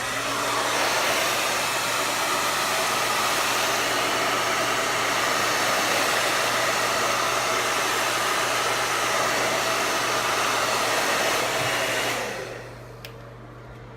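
Handheld blow dryer running steadily on its hot, high setting, then switched off about twelve seconds in and winding down.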